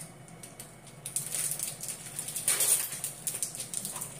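Irregular crinkly rustling and light clicks of handling, denser about a second in and again at about two and a half seconds.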